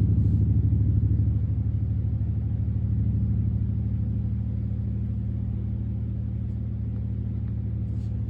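One deep low note ringing out through an amplified speaker, with a fast wobble, slowly fading.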